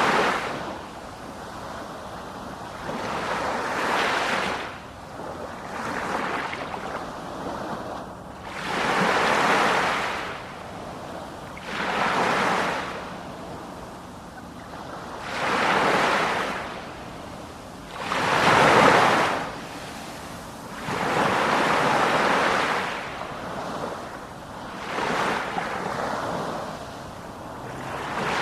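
Ocean waves washing onto the shore one after another, each one rising to a rushing hiss and falling away, about one every three seconds.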